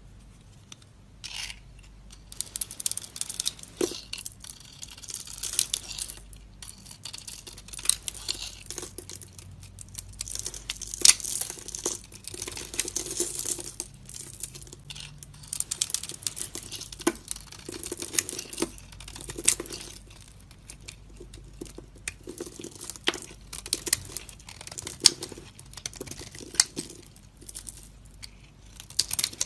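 A knife cutting and carving a bar of dry soap: stretches of crunchy scraping broken by many sharp cracks.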